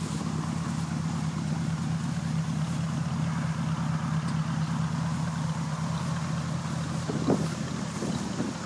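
The V8 of a 1966 Mercury Park Lane idling steadily, heard close to the rear bumper and exhaust.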